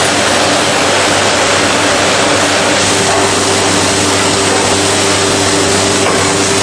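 Through-feed CNC woodworking machine for door production running: a loud, steady machine noise with a low hum, one hum tone growing steadier about three seconds in.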